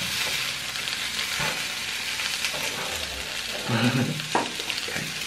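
Burritos frying in oil on an electric griddle, a steady sizzle, with a brief vocal sound about four seconds in.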